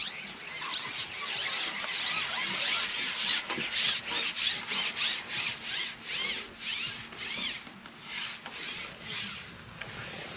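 A Maver carbon fishing pole being shipped out hand over hand, with the pole pot on the end. Its sections make rubbing, squeaking strokes through the hands, about two to three a second, that thin out near the end.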